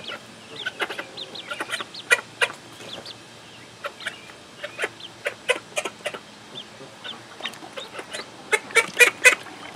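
Call duck ducklings peeping, mixed with repeated short quacks from an adult call duck. A quick run of louder quacks comes near the end.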